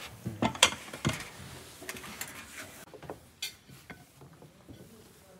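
Porcelain plates and tea bowls clinking and knocking as they are set out on a table: a few sharp taps in the first second, then fainter scattered clicks.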